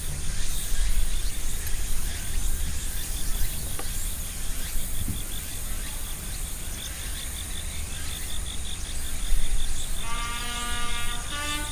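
Insects chirping outdoors: a steady, high, rapidly pulsing chirp that keeps an even rhythm, over low rumble. Background music comes in about ten seconds in.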